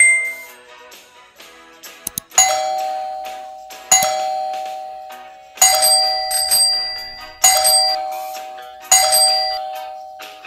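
Outro sound effects: a brief ding, a couple of quick clicks about two seconds in, then five bell-like chimes struck one after another. Each chime rings two tones together and fades over about a second and a half.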